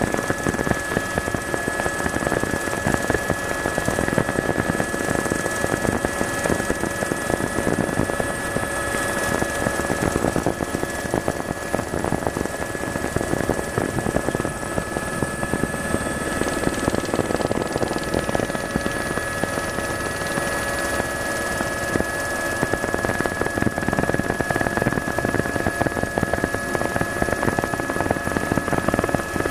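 Tour helicopter's engine and rotor noise, a steady loud drone with a constant high whine over it.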